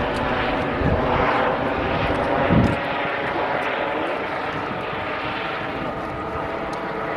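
A steady engine drone of several even tones, easing off slightly in the second half, with two low thumps about a second and two and a half seconds in.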